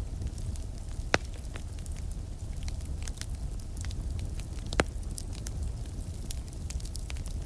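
Campfire burning and crackling: a scatter of small wood snaps, with two sharp, loud pops, one about a second in and one near five seconds, over a steady low rumble.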